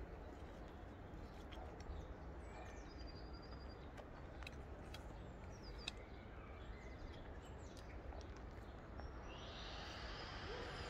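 Outdoor ambience: a steady low rumble with a few faint, short bird chirps and light clicks. A higher hiss comes in near the end.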